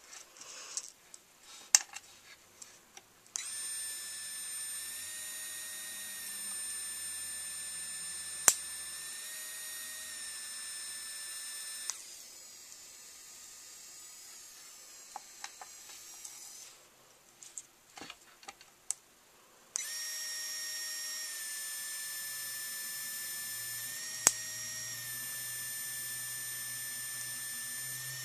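3Doodler 3D pen's motor whining steadily as it feeds plastic filament, in two long runs: one from a few seconds in to about the middle, and one over the last third. A few sharp clicks and light handling taps fall between and during the runs.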